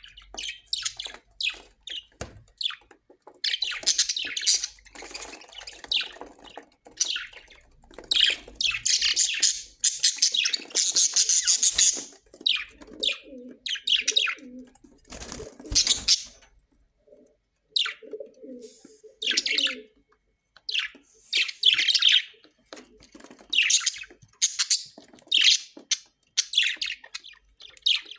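Parrots chirping and calling in an irregular run of high-pitched chirps, with lower warbling calls twice in the middle.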